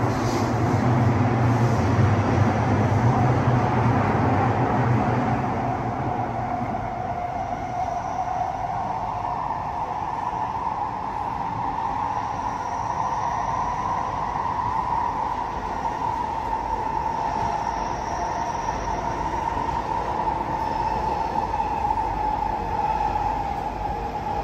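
Heard from inside the carriage, a C151C metro train running between stations: a steady rumble of wheels and running gear, heaviest in the first few seconds. Over it is a motor whine that climbs in pitch during the first half and sinks slowly through the second half.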